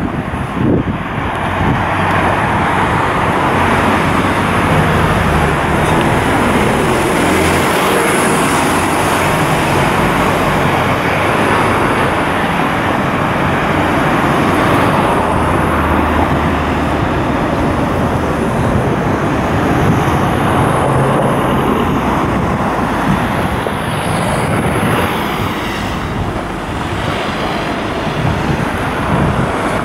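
Road traffic on a city street: cars driving past in a steady rush of engine and tyre noise. Engine hum swells a few seconds in and again in the middle as heavier vehicles go by.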